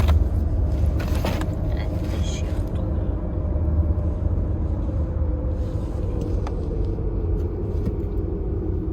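Steady low rumble, like a running vehicle, with a drone that slowly falls in pitch; a brief sharp noise about a second in.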